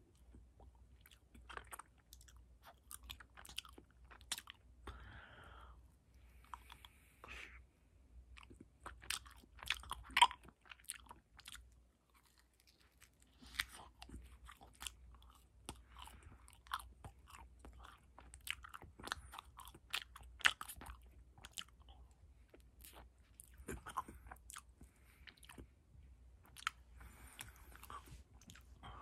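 Close-up eating sounds of vanilla ice cream in a wafer cone: repeated bites and chewing, with crisp crackling crunches of the wafer. The chewing pauses briefly about twelve seconds in.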